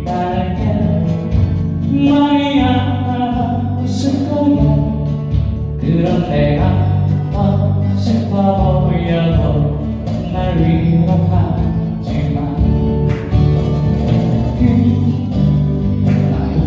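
A song being performed: a sung melody over an instrumental accompaniment with a bass line and a steady beat.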